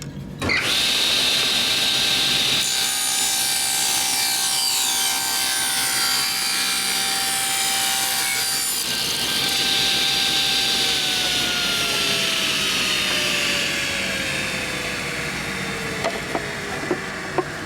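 Table saw ripping a wooden box bottom to width, its blade running with a steady whine through the cut. The saw is switched off about eleven seconds in, and the whine falls in pitch as the blade spins down.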